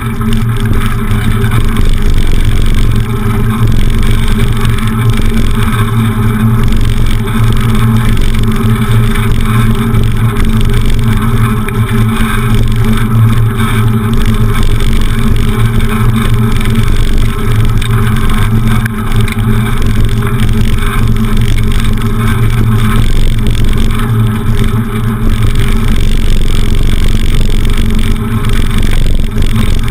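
Steady wind rush and rolling road noise from a camera mounted on a moving bicycle's handlebars, with a heavy low rumble throughout.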